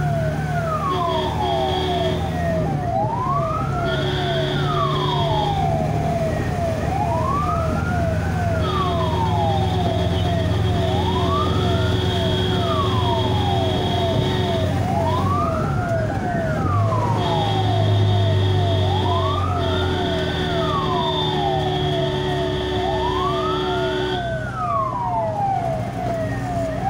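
Ambulance siren sounding continuously while the vehicle drives. A wail rises and falls about every four seconds over a fast repeating yelp. A steady higher tone cuts in and out in long stretches, over low engine and road rumble.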